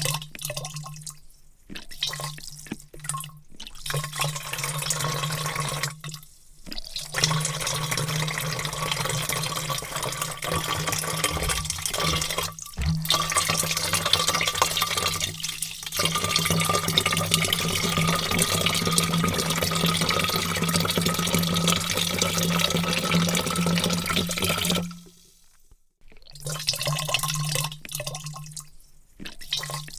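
Water pouring in a stream into a vat, starting and stopping. Short pours with brief breaks come first, then one long steady pour of roughly eighteen seconds, which cuts off and gives way to short pours again near the end.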